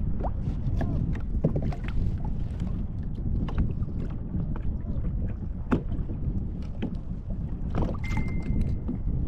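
Wind buffeting the microphone and water slapping against a kayak's hull, with scattered small clicks and knocks of handled tackle. A thin steady tone sounds for about a second near the end.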